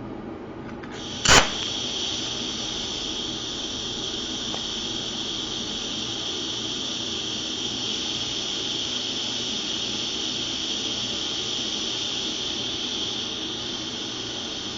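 TIG welding arc struck with a sharp crackle about a second in, then a steady buzzing hiss as the arc is held on the steel.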